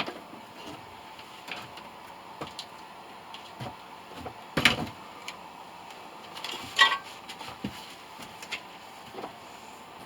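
A few sharp knocks and clanks, the loudest two about four and a half and seven seconds in, over a faint steady hum.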